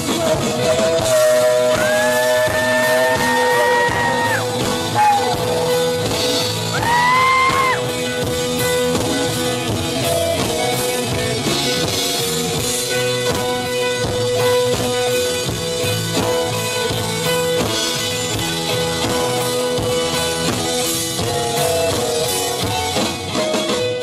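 A rock band playing live, with a male lead singer and guitar. Two high sliding notes stand out, a couple of seconds in and again around seven seconds in, over a held note.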